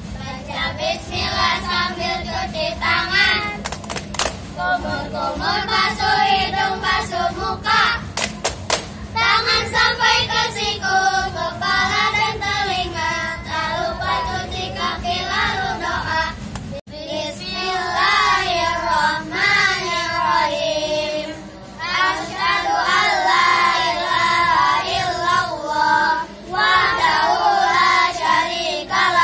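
A group of children singing together in unison, with a few sharp hand claps about four seconds in and again around eight to nine seconds.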